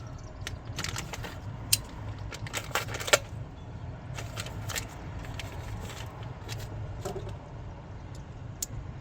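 Metal parts and tools handled on a workbench, giving irregular sharp clicks and clinks, with a cluster of them around three seconds in. A steady low hum runs underneath.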